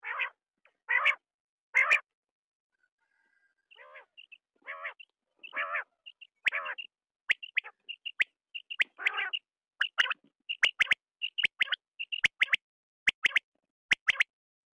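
Quail calling in repeated short notes. Three raspy notes come about a second apart, then after a pause of nearly two seconds the calls resume thicker and faster as quick sharp notes, many in pairs.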